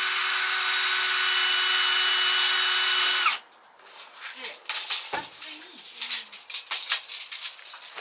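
Power drill running at a steady whine for about three seconds, then cutting off, followed by scattered knocks and clicks of hand work on wood.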